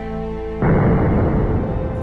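A handgun shot slowed down, heard as a deep, dull boom that starts suddenly about half a second in and dies away over about a second. Background music with sustained tones plays throughout.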